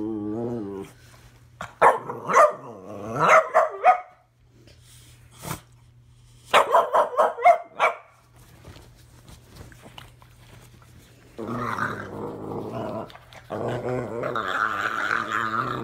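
A puppy growling and giving play barks in about five bursts as it wrestles with a person's hands, over a steady low hum.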